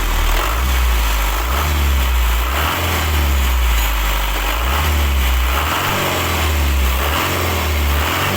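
Isuzu lorry engine idling steadily with its fan and water-pump drive belt removed and the power steering blanked off. The abnormal noise it had is gone, which points to the water pump and fan as the cause.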